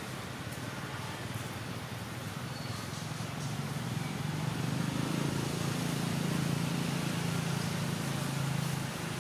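A motor vehicle's engine rumbling, swelling from about three seconds in and dropping away near the end, over a steady outdoor hiss.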